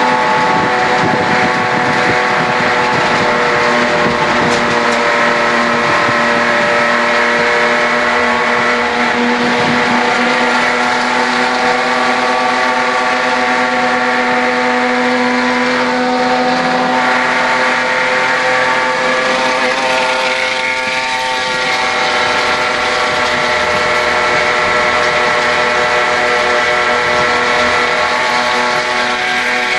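A Holden HQ race car's straight-six engine running hard at steady, near-constant revs, heard from inside the cabin. A little past two-thirds of the way through the revs briefly dip, then recover.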